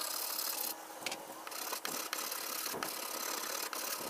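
Metal body file scraping across the bare steel of a car's dented liftgate panel, with several sharp clicks scattered through.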